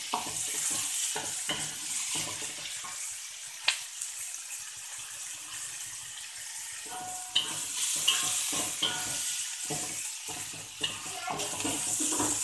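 Sliced shallots sizzling in hot oil in a metal wok, frying down until wilted, with a wooden spatula scraping and knocking against the pan as they are stirred. The stirring stops for a few seconds in the middle, leaving only the sizzle, then starts again.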